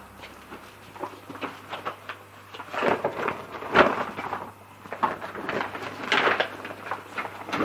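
Irregular rustling and a few knocks from a small propagation grow tent being put together by hand, loudest about three, four and six seconds in.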